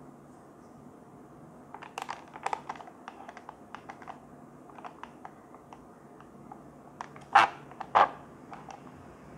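Plastic cup's sealing film crackling and clicking as a silicone drinking straw is pressed against it to push through, ending in two loud sharp snaps about half a second apart.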